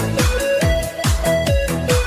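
Electronic dance music with a steady pounding kick drum and a synth melody.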